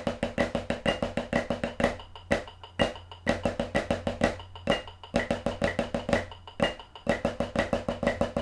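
Snare drum played with sticks in Swiss Army triplets (a flam, then right-right-left style sticking), a steady stream of quick strokes over an even metronome click at about two beats a second, with a few brief breaks between phrases.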